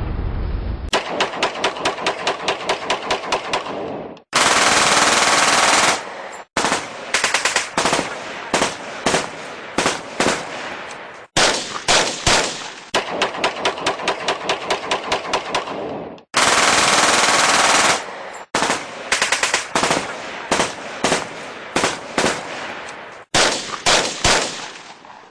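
Machine-gun fire in a series of bursts: long rapid strings of shots and some sparser runs of spaced shots, broken by brief pauses. A low rumble is heard for about the first second before the firing starts.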